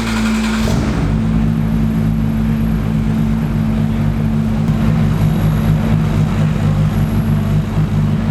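Praga R1T race car's engine running at a steady, unchanging pitch, with no revving.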